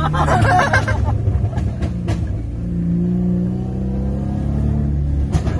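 Modified Mercedes engine running under way, its pitch rising and falling with the throttle. The valved exhaust gives a few sharp pops, likened to popcorn popping.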